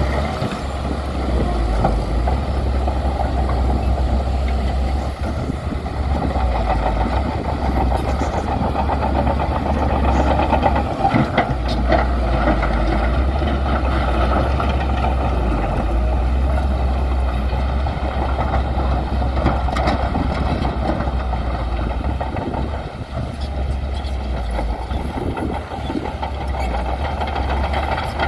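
Heavy diesel engine of a bulldozer running steadily under work, with a few brief knocks about eleven seconds in.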